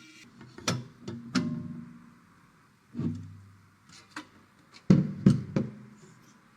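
A series of about seven sharp knocks and clicks, irregularly spaced, several of them followed by a short low ringing; the loudest cluster comes about five seconds in.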